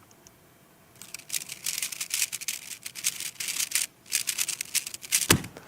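Rapid, dense clicking of a speedcube being turned at full speed for about four seconds during a 3x3 Rubik's cube speedsolve. It ends in a single thump, the hands coming down to stop the timer.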